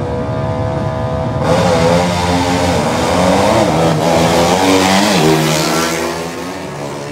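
Two motorcycles accelerating hard down a drag strip, their engine notes climbing in pitch and dropping back at each gear change. They get louder from about a second and a half in as they pass, then fade away near the end.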